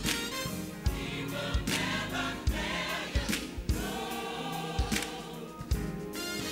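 Gospel music: a choir singing over a band with a drum beat.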